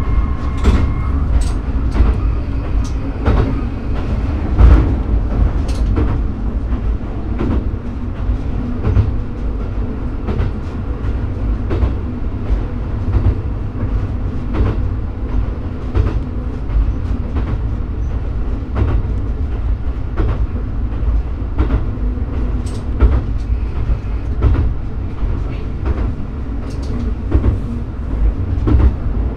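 Diesel railcar running along single track, heard from inside the cab: a steady engine drone under irregular clacks of the wheels over rail joints.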